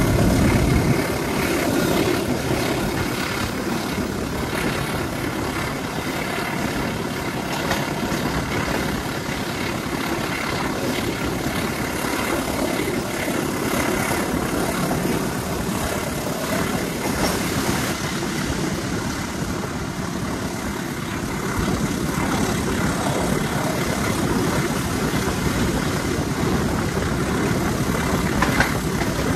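A passenger train running, heard from on board: steady rumble and clatter of wheels on the rails, with the engine of the CC203 diesel-electric locomotive working under load ahead. A single sharp click sounds near the end.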